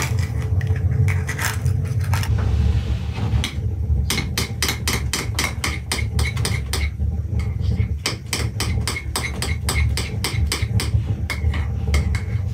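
Metal spoon beating eggs and milk in a glass bowl: a fast, even run of clinks against the glass, about five a second, with a short pause about seven seconds in. A steady low rumble sits under it.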